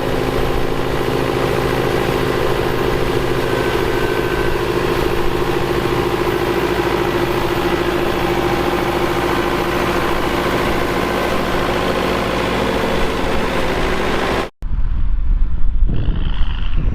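John Deere 2140 tractor's diesel engine running steadily. About 14.5 seconds in, the sound cuts off abruptly and is replaced by gusty wind on the microphone.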